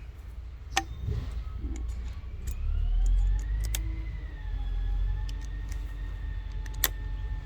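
Ryobi RID18X brushless impact driver hammering a screw into a hardwood sleeper without a pilot hole. A steady low buzz of rapid impacts runs under a motor whine, which rises in pitch over the first few seconds and then eases slightly and holds. A few sharp clicks sound over it.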